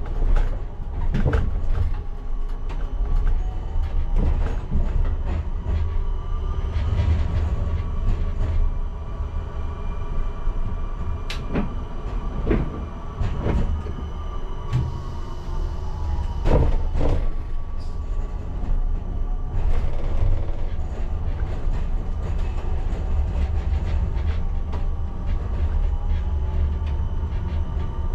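Škoda 03T Anitra tram running along the track with a steady low rumble. Its traction motors whine, rising in pitch and later falling away. Several sharp knocks come from the wheels passing over rail joints or points, mostly in the middle stretch.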